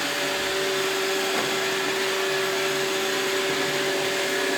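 iRobot Roomba 612 robot vacuum running while it cleans the floor: a steady motor whir with a constant hum.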